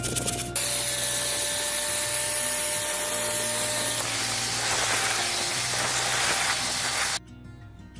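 Steady spraying hiss, as from a spray can or compressed-air spray gun, starting about half a second in and cutting off suddenly near the end.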